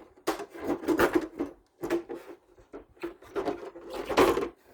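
A black plastic socket-set case being handled and opened: clicks and clatters of its latches, lid and the tools inside, in several quick clusters.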